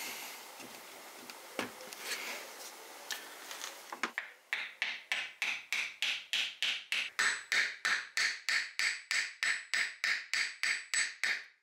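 Hammer blows driving a wooden dagger handle down onto its tang and cross guard: a steady run of sharp knocks, about three a second, after a few seconds of lighter scattered tapping.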